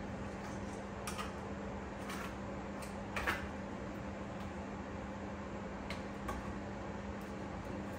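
Chopsticks clicking and knocking against a stainless steel pot, about six short sharp taps, the loudest a little after three seconds in, over a steady low hum.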